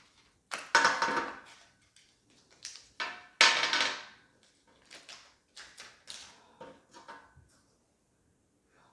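A cardboard box and the wrapped air freshener tray inside it being unpacked by hand: a series of short rustles, scrapes and light taps, loudest about three and a half seconds in, dying away after about seven seconds.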